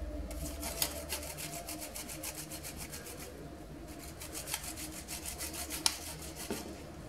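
Sesame cookie dough being rubbed quickly back and forth over a flat handheld metal grater: a fast run of grating strokes, several a second, with a brief pause a little over three seconds in.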